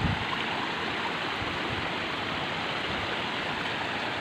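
Water running in a rice-field drainage ditch, a steady even rushing.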